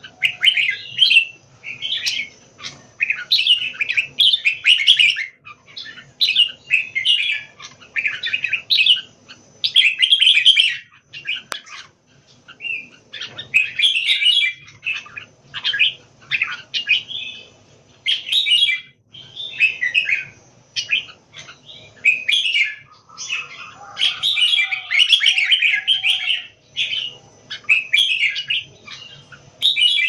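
Caged red-whiskered bulbuls singing and calling: short, bright chirping phrases, one after another with brief gaps.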